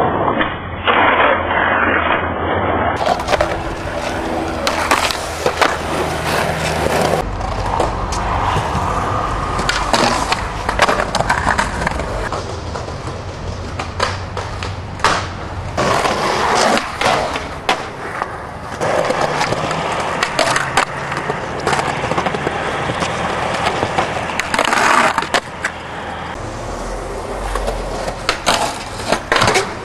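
Skateboard wheels rolling on concrete, broken by many sharp clacks of tail pops and landings. Trucks grind along ledges and a metal flat bar, with a sudden change in the sound at each cut between clips.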